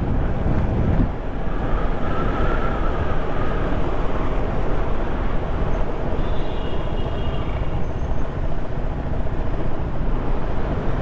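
Sport motorcycle engine running steadily while riding at low town speed, with wind rushing over the camera microphone.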